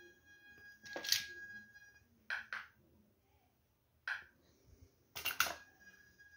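VLF metal detector's audio: a faint steady high tone, broken by short sharp signals as test pieces of ferrite core and iron pass over the 28 cm search coil. The signals come about a second in, twice around two and a half seconds, once around four seconds and twice near the end. The steady tone stops between the middle signals.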